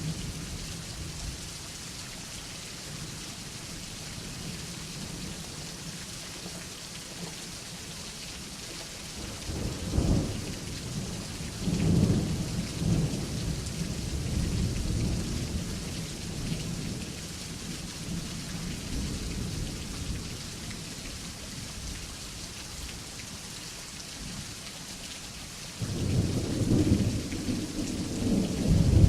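Steady rain hiss with rolling thunder: a rumble about a third of the way in, another that rolls on for a few seconds just after it, and a louder rumble building near the end.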